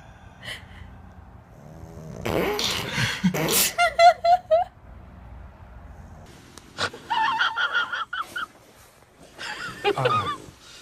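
A sleeping puppy's noisy snorting breaths about two seconds in, followed by several short, high, wavering whimpers.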